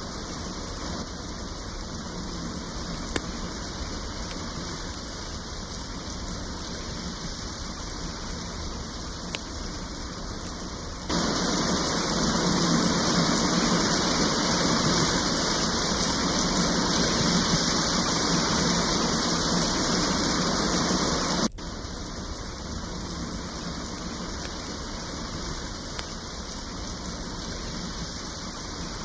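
Steady rain, with a louder, heavier wash of rain that cuts in abruptly about a third of the way through and cuts out just as abruptly about ten seconds later. A couple of faint clicks sound in the first part.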